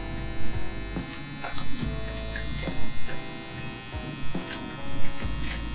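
Eibos Eurus 5 V USB filament vacuum pump running steadily with a thin electric whine as it draws the air out of a filament storage bag.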